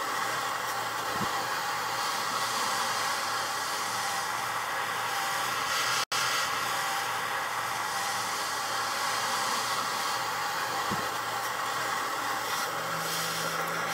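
Blow torch flame hissing steadily as it plays on the edge of a plastic CD, cutting out for an instant about six seconds in.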